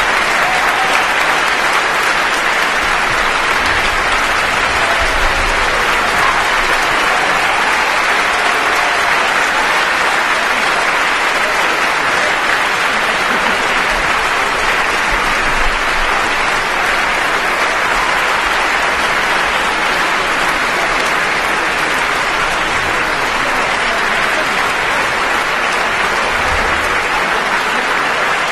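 Concert-hall audience applauding, a steady, even ovation.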